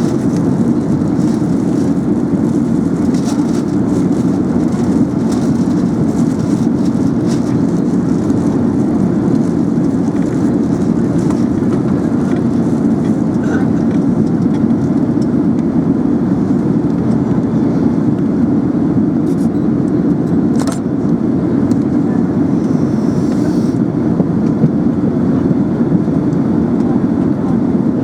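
Steady cabin noise of an Airbus A380 airliner in flight: an even, loud rumble of engine and airflow noise heard from inside the cabin, with a couple of faint clicks about twenty seconds in.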